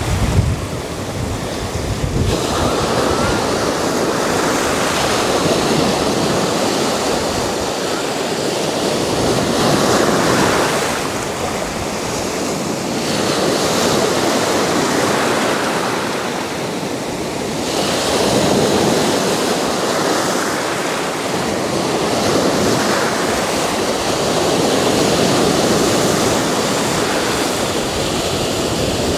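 Sea surf breaking and washing up the beach in a continuous rush of water that swells and eases every few seconds as each wave comes in.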